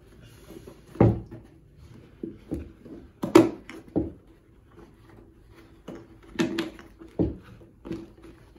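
Handling noise from a Canmore synthetic bagpipe bag being worked onto its stocks as a drone stock is forced through the bag's collar: rubbing of the bag and a series of short dull knocks, the loudest about three seconds in.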